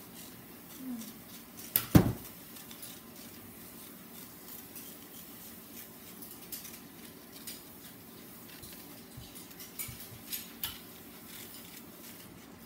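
Scissors snipping construction paper: scattered small clicks and snips, with one sharp knock about two seconds in.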